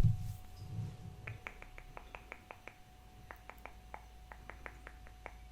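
A thump, then a quick run of about twenty light, sharp clicks close to the microphone, roughly five a second.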